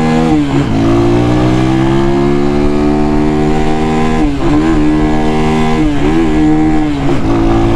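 Missile 250cc timing-chain motorcycle engine pulling along the road. Its note climbs steadily and dips briefly about four times.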